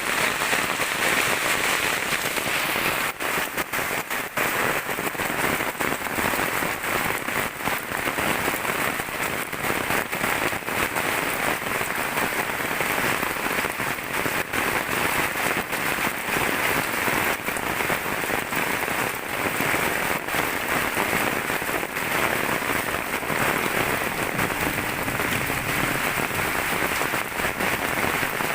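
Steady heavy rain pattering on surfaces, a dense even hiss with many individual drop ticks through it.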